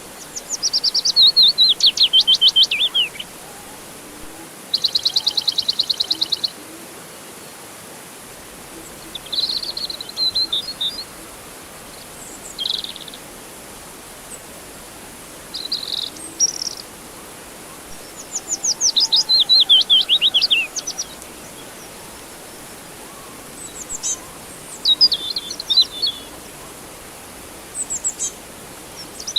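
Songbirds singing in a series of separate phrases a few seconds apart: fast trills that fall in pitch, a rapid even trill, and short high chirps. A steady hiss runs underneath.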